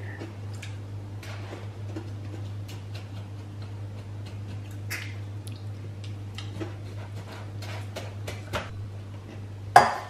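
Spoons clicking and scraping against glass mixing bowls and paper cake cases as chocolate cereal mixture is scooped out: scattered small irregular clicks, with one louder clink near the end.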